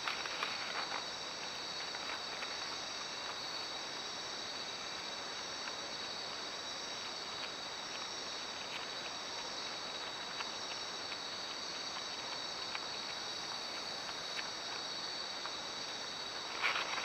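A steady chorus of night insects, a continuous high-pitched trilling drone, with a few faint scattered clicks.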